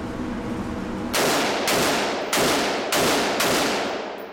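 AR-15 rifle fired five times in a steady series, starting about a second in, roughly one shot every half second. Each shot rings with echo off the concrete walls of the enclosed indoor range.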